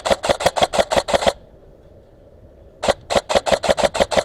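Airsoft gun firing close by in rapid strings of sharp shots, about seven a second: the first string stops about a second in, and a second string starts near the three-second mark and runs to the end.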